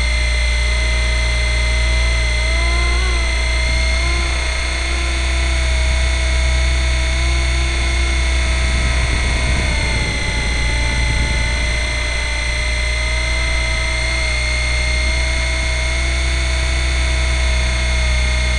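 Nine Eagles Kestrel 500 electric RC helicopter in flight, heard from a camera mounted on it: a steady high motor whine over a low rotor drone. The whine dips and rises slightly a few times.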